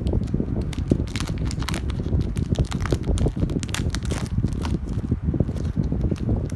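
Foil trading-card booster-pack wrapper crinkling and tearing open in many short crackles, over a steady low rumble.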